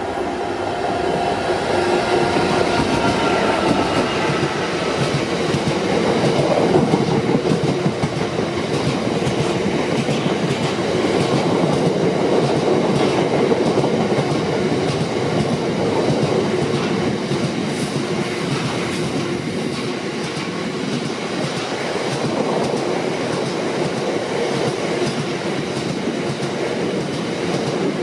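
Class 66 diesel freight locomotive, with its engine tone heard over the first few seconds as it comes through, then a long train of bogie hopper wagons rolling past. The wheels give a steady rumble with regular clacking over the rail joints.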